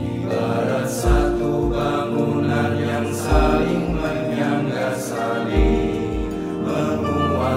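A community hymn: voices singing together over instrumental backing, with a deep beat landing about every two seconds.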